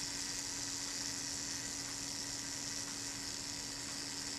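The Kodak Retina IIIc's Synchro-Compur leaf-shutter self-timer escapement buzzing steadily as it runs down, working smoothly, and stopping near the end.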